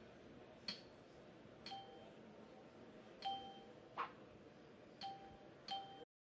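Faint room tone broken by six short clicks, four of them with a brief two-note electronic beep. The sound cuts off abruptly near the end.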